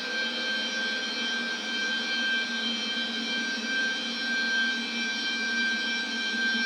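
Waterphone sound effect slowed down about fifty times and drenched in reverb: a steady drone of many held, ringing metallic tones, one high tone standing out above the rest, with no deep bass.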